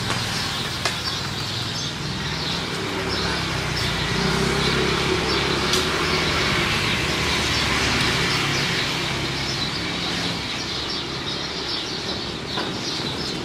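Outdoor ambience: a motor vehicle's engine running, swelling in the middle as if passing, with birds chirping.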